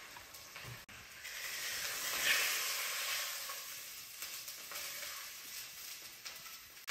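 Thin slice of Wagyu A4 entrecote sizzling in an old cast-iron pot. The sizzle swells about a second in, then slowly fades.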